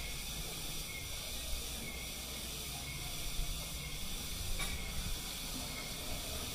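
A steady hiss over a low rumble, with a few faint, short clicks from people eating at the table.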